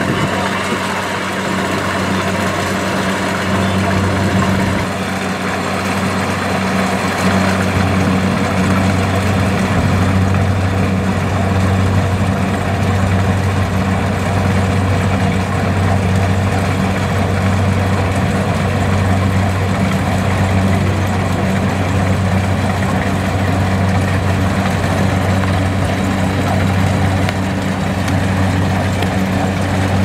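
Kubota DC-70 rice combine harvester's diesel engine running steadily, a loud, even hum, as the machine drives forward through tall grass.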